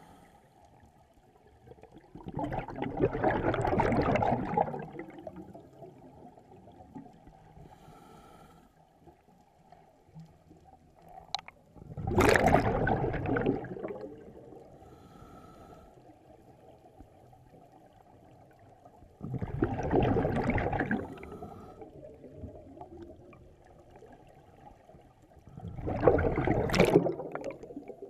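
Scuba diver's exhaled bubbles rushing out of the regulator underwater, in four loud surges about every seven seconds: the slow breathing rhythm of a diver on open-circuit scuba. Between the surges there is a steady low water rumble and a faint short tone as each breath is drawn through the regulator.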